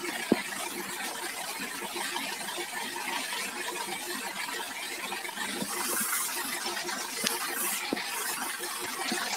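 Water jet from a washing lance hissing and splashing against a steel tractor-mounted rotavator, over a steady mechanical hum, with a sharp knock shortly after the start and a couple of smaller clicks near the end.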